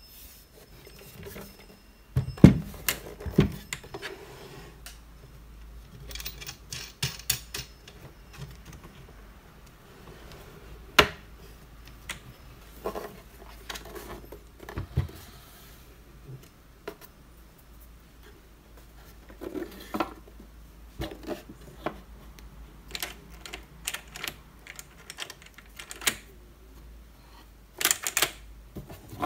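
Wooden table easel sketchbox being handled and adjusted by hand, with irregular wooden knocks and clicks of its parts and fittings. There are two heavier thumps a few seconds in, a quick run of small clicks a little later, and a dense burst of clicking near the end.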